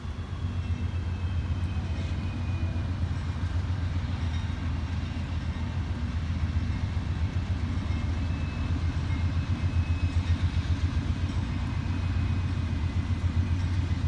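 A CSX freight train's diesel locomotives approaching, a low steady engine rumble that grows slowly louder.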